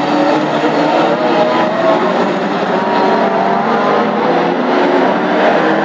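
A pack of Classic Hot Rod race cars running hard on an oval short track, several engines at once at different pitches, with a steady, unbroken engine noise.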